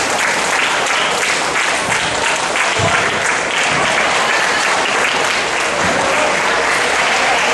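Crowd of student spectators clapping steadily, a dense patter of many hands.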